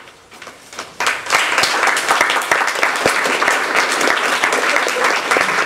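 Audience applause breaking out suddenly about a second in, many hands clapping steadily in a small room at the end of a poetry reading.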